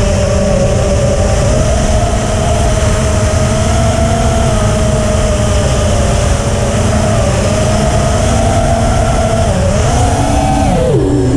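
Brushless motors and propellers of a 250 mm FPV freestyle quadcopter (EMAX RSII 2206 2700KV motors) whining as it flies, heard on the onboard camera over heavy wind rumble. The pitch wavers with throttle. Near the end it falls sharply as the throttle comes off.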